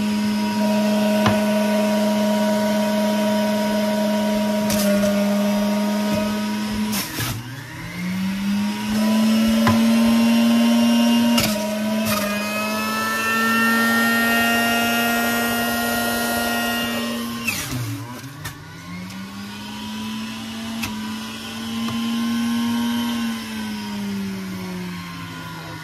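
Electric centrifugal juicer's motor running with a steady whine as apple pieces are fed through its chute. Twice its pitch drops sharply and climbs back as the load of apple slows the spinning basket, and it sinks again near the end, with a few knocks from the pieces being pushed in.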